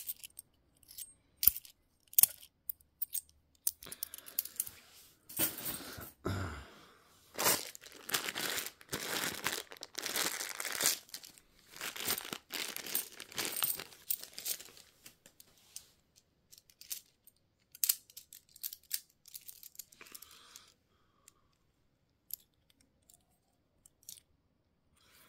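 A bag of 50p coins being torn open and its packaging crinkled, with scattered sharp clicks as the coins are handled. It thins out after about fifteen seconds and falls to near silence for the last few seconds.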